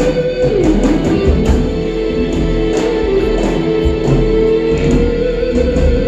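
Live prog-rock band playing an instrumental passage: a sustained electric guitar lead holds a high note, bends down about half a second in, and settles on long held notes over the band's steady accompaniment and cymbals.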